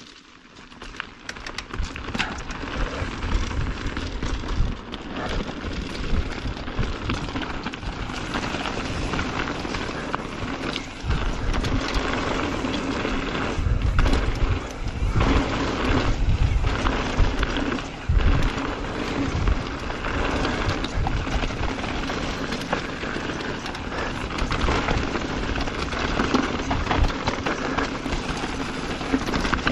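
Mountain bike riding fast down a rough dirt and gravel trail, heard from a camera mounted on the rider: tyres crunching over gravel and dry leaves, the bike clattering over bumps, and wind buffeting the microphone in low rumbling gusts.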